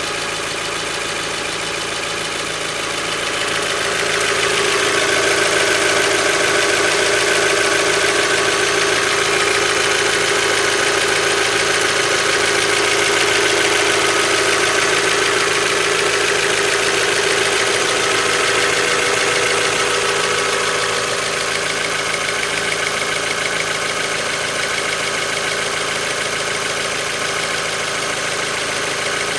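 Mazda Miata four-cylinder engine idling with a fast, light ticking from the top end, which the owner suspects is lifter tick. It grows louder about four seconds in and eases back about twenty-one seconds in.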